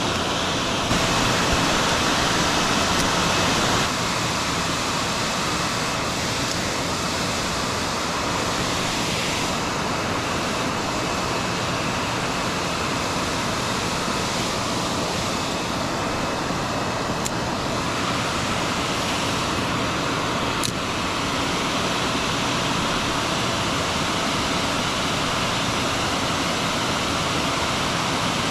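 Steady rushing of creek water below a dam, an even hiss that is a little louder for the first few seconds, with a couple of faint ticks in the second half.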